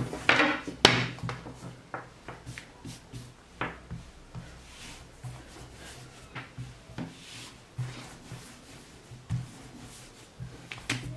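Long thin wooden rolling pin (oklava) with yufka dough wrapped around it, rolled and pressed back and forth on a table: scattered soft knocks and rubbing, with a couple of louder knocks in the first second.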